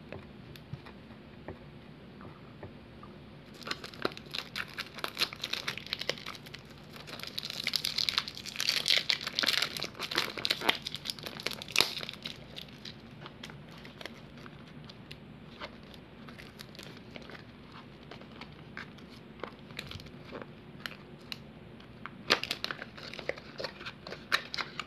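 Thin plastic wrapping crinkling and tearing as it is worked off a small paperboard serum box, in dense bursts for several seconds. Then quieter scattered rustles and light clicks, with a short flurry near the end as the box's paper flap is pulled open.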